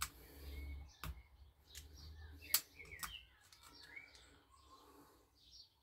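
Faint small metal clicks and scrapes of a pick prying at the gudgeon-pin circlip in a small two-stroke piston, the sharpest click about two and a half seconds in. A few faint high chirps come between the clicks.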